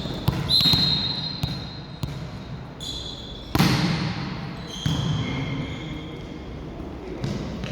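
Volleyball being struck and bouncing on a gym floor, a few sharp smacks with the loudest about three and a half seconds in, echoing in a large hall. Between them come short high squeaks, typical of court shoes on the floor.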